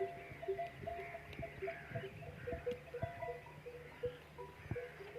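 Camel bells clanking and ringing as the animals move. There are many short bell notes at uneven intervals, several a second, with sharp knocks among them.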